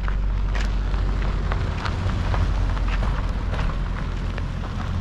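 Kia car driving, heard as a steady low road and engine rumble with scattered small clicks and crackles throughout.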